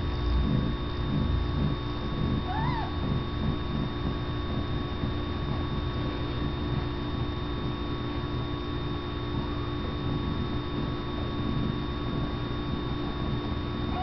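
Newborn kittens giving thin, high mews: one short rising-and-falling squeak about three seconds in and another near the end. Underneath are a steady low rumble and an electrical hum.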